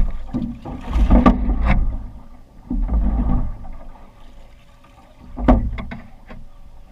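Knocks, clicks and dull thumps of someone moving about and handling gear in a small metal boat, with low rumbling between them. The loudest bumps come about a second in, around three seconds in and about five and a half seconds in.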